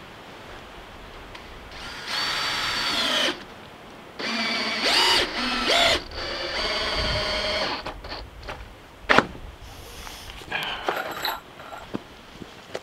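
Cordless drill driving screws into the wooden floor framing in four bursts, its motor pitch dropping under load as the battery runs low. A sharp knock comes about nine seconds in.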